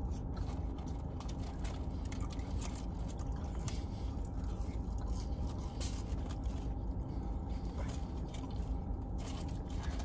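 Chewing of crisp shoestring french fries, with scattered small crunches and clicks, over a steady low hum inside a car cabin.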